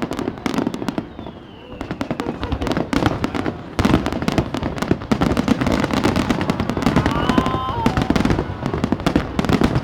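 Aerial firework shells bursting over and over in quick succession: a dense run of bangs and crackle. It eases off briefly about a second in and comes back with a heavy burst near four seconds.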